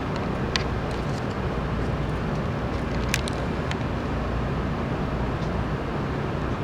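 Steady low rumble and hiss of a Shinkansen train, with a few faint clicks.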